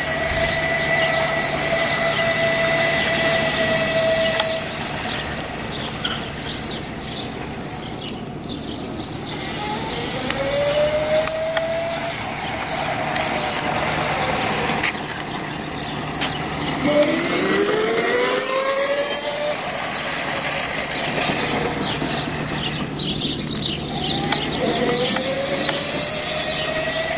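Brushless electric motor of a Kunray 3000 W, 72 V go-kart conversion whining as the kart drives laps, its pitch rising several times as it speeds up.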